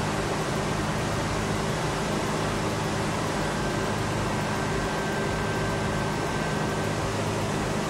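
A steady mechanical drone with a constant low hum and a faint high whine.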